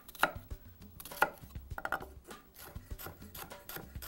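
Chef's knife mincing a shallot on a wooden cutting board: a quick, uneven run of knife knocks on the wood, with two louder strikes in the first second or so.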